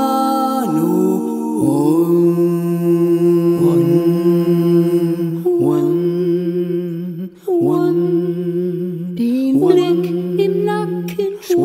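Song with a voice singing long, held, chant-like notes. Each phrase slides up into its note, over a lower sustained note.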